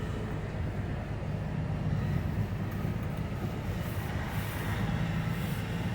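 Steady low drone of a moving vehicle's engine and road noise.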